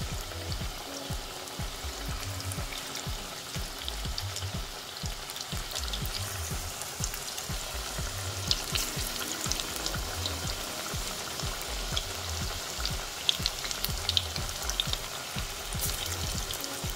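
Onion pakoras deep-frying in hot oil in an aluminium kadai: a steady sizzle with sharp crackles and pops. More gram-flour and onion batter is dropped into the oil, and the crackling grows busier about halfway through.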